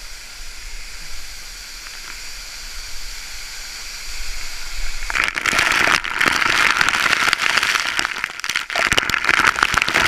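Waterfall rushing as a steady hiss, then, from about five seconds in, water pelting directly onto the camera and its microphone as a much louder, crackling spatter.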